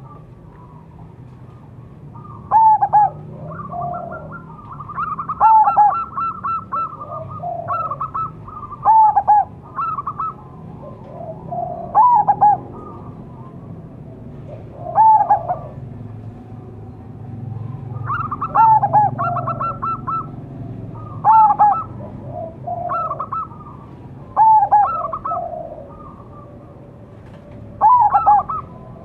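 Zebra dove (perkutut) cooing: a phrase of quick staccato notes running into a rolling coo, repeated about nine times, roughly every three seconds.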